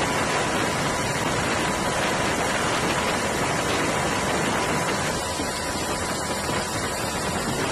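Steady rushing noise of wind and aircraft engine on an airborne microphone high above the sea, with a faint steady whine; the hiss thins slightly about five seconds in.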